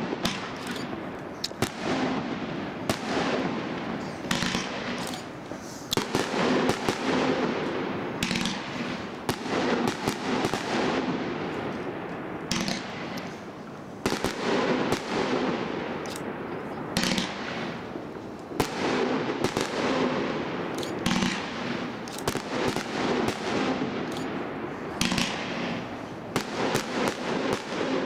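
Firework cake (battery) firing: a rapid run of shots and star bursts, one every second or so, with crackling in between.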